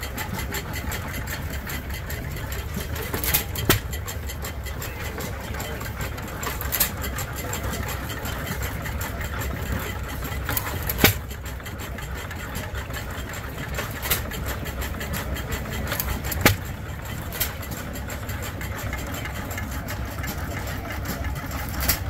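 Antique stationary gas engines running, with a sharp exhaust pop every few seconds at irregular spacing over a steady low rumble. The uneven firing is typical of hit-and-miss engines idling.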